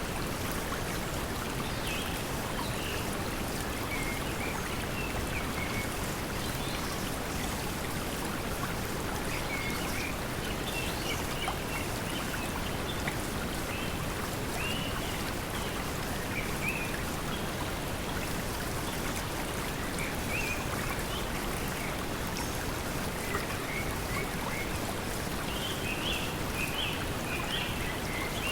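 Steady pink noise blended with the sound of flowing water, with short bird chirps coming in small clusters every few seconds over it.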